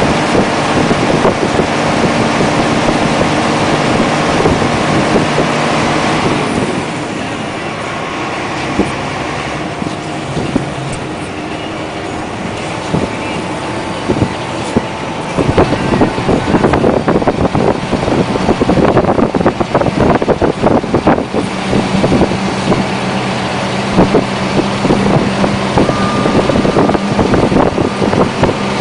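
UD Trucks Quon dump truck's diesel engine running, dropping in level about six seconds in, then louder again from about fifteen seconds in with a quick run of knocks and clatter over it.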